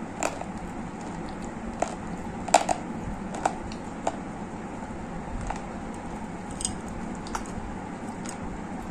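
Dry gray clay crunching as it is chewed: sharp crunches and clicks roughly once a second over a steady hiss, the loudest about two and a half seconds in.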